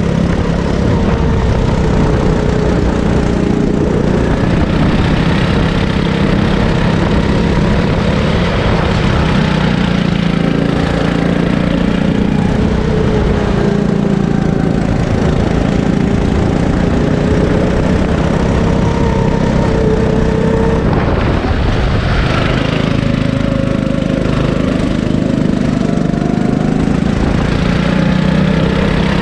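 Sodi rental kart's small engine running at speed on track, heard from on board the kart. Its pitch rises and falls with the throttle, dropping about three-quarters of the way through and climbing again near the end as the kart accelerates.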